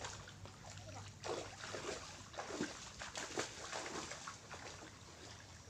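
Shallow seawater splashing and lapping at the shore: a run of small, irregular splashes.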